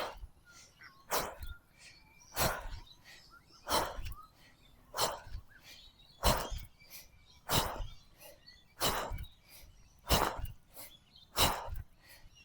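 A person breathing hard and rhythmically in breathwork, with one sharp, forceful breath about every 1.3 seconds, ten in all.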